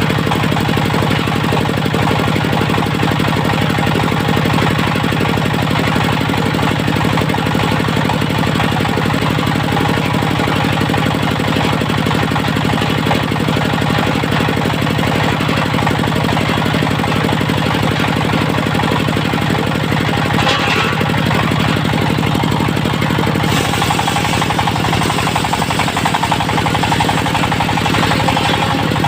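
Diesel engine of a locally built portable circular sawmill running steadily with a rapid knocking beat. A brief hiss comes about twenty seconds in, and a higher hissing sound joins a few seconds later.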